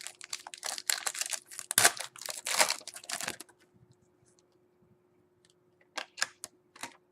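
A foil trading-card pack being torn open and crinkled: dense bursts of crackling rustle for about three and a half seconds, then a few short, sharp clicks near the end.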